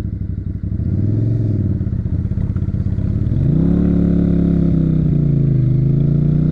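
Small motorcycle engine under the rider, accelerating. Its pitch lifts briefly about a second in, then climbs sharply about three seconds in and holds high.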